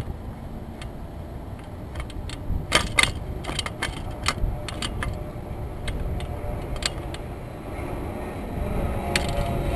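Wind rumbling on the microphone, with scattered sharp clicks and knocks, the loudest cluster about three seconds in. Near the end the whine of a jet airliner approaching begins to rise.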